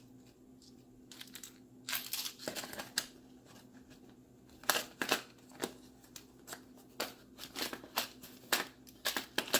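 Loose screws and small plastic pieces being rummaged through and handled in a plastic tool case: irregular clicks, rattles and rustles, few in the first two seconds and busier from then on.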